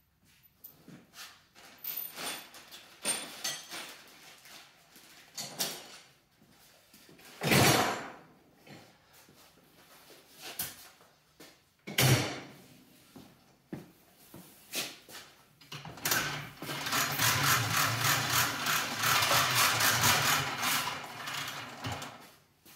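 Metal tools and hardware clanking and knocking during suspension work, with two sharp loud bangs partway through. Near the end a motorised tool runs for about five seconds with a rapid, even rattle, then stops.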